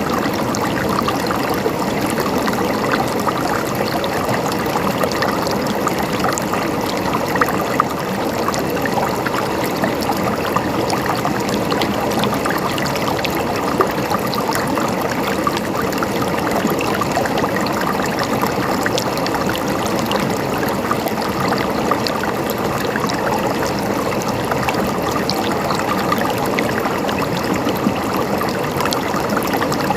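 River water flowing steadily over rocks, a continuous babbling with many small splashes and gurgles.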